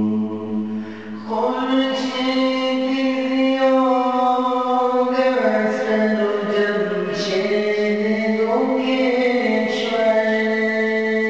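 Devotional chanting: a voice holding long notes that step to a new pitch every few seconds, over a steady low drone.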